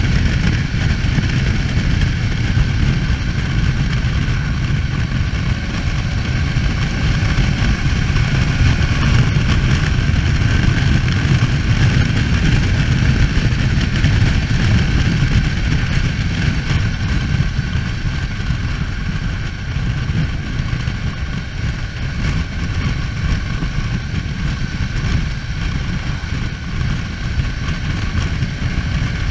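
BMW F800 GS parallel-twin engine running steadily at cruising speed, heard from a handlebar-mounted camera under heavy wind rush, getting slightly quieter about two-thirds of the way through.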